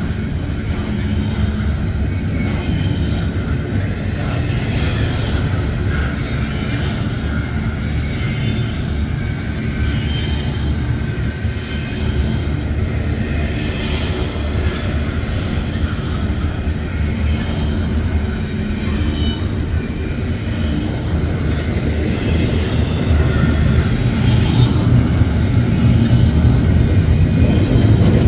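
Double-stack container train rolling past at close range: a steady low rumble of steel wheels on the rails that grows louder near the end.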